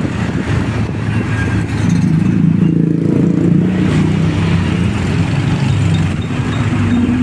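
Hino bus engine running with its exhaust giving a deep growling 'ngorok' note as the bus drives along. The note strengthens about two seconds in and then holds steady.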